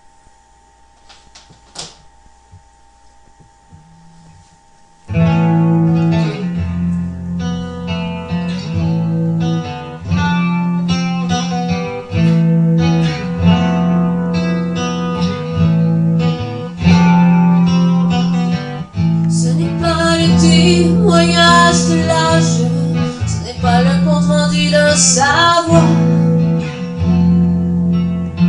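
Song intro on guitar, beginning suddenly about five seconds in after a quiet stretch with a faint hum, then steady plucked and strummed chords. A wavering melody line rises and falls over the guitar in the second half.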